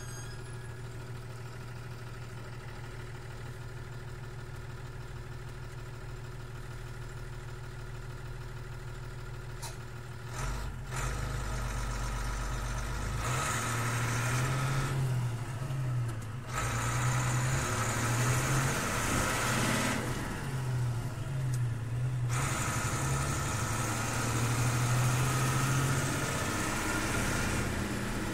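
Six-cylinder diesel engine of a 1984 Bedford 10-ton truck heard from inside the cab, running steadily at first. About ten seconds in it gets louder, and its pitch rises and falls several times.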